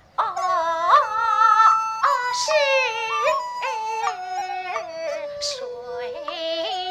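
Kunqu opera music: a high, drawn-out sung melody with wavering vibrato and sliding ornaments over instrumental accompaniment, coming in just after a brief pause.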